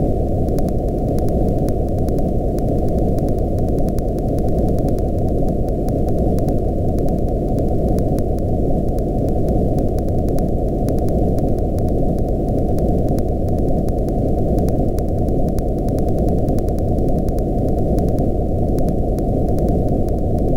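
Steady, loud electronic noise with all its weight in the low range, heard as a deep, even rumble. A faint, fine crackle of clicks lies over it.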